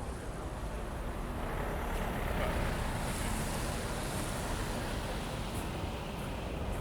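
Wind buffeting the microphone: an uneven low rumble under a steady rushing noise that swells a little about two seconds in.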